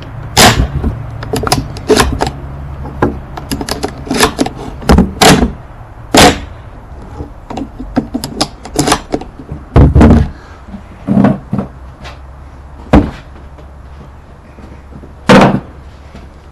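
Shotgun being loaded and handled: a run of sharp metallic clicks and knocks at irregular intervals, with about half a dozen much louder knocks among them, over a steady low hum.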